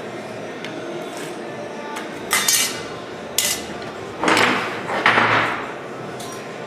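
Metal being handled in a workshop: a few sharp clanks and longer scraping rasps of sheet steel and tools against each other, spread irregularly over a few seconds.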